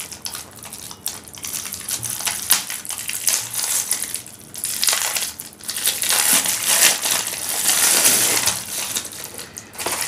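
Thin clear plastic wrapping crinkling and crackling as it is peeled off a plastic night-light dome by hand. There is a brief lull a little past four seconds, and it is loudest in the second half.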